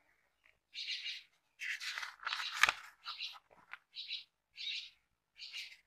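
Paper pages of a thick paperback book being turned one after another, a quick rustle about every half second, with a sharper snap of paper about two and a half seconds in.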